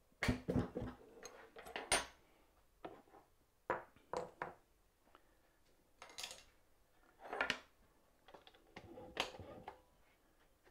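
A spanner and router parts clinking and clattering on a router table's top, with knocks of wooden frame pieces being handled and set down: about a dozen separate clinks and knocks, spaced irregularly.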